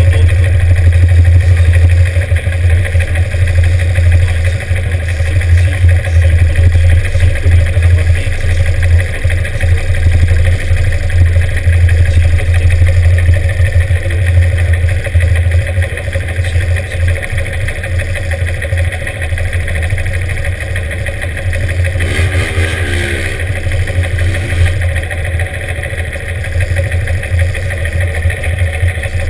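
Classic motorcycle engines idling steadily, the nearest being a Norton 750 Commando's air-cooled parallel twin. About 22 seconds in, an engine is briefly revved up and back down.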